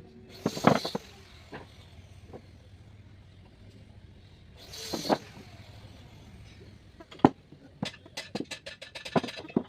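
Hand woodworking sounds: two short rasping strokes, then a quick run of sharp knocks and taps near the end.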